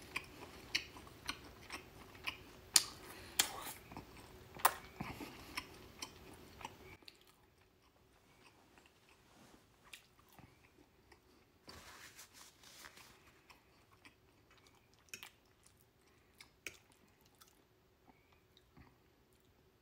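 A person chewing a mouthful of barbecued meat close to the microphone, with wet mouth clicks and smacks. The chewing is busiest and loudest in the first seven seconds or so, then goes on softer with scattered clicks.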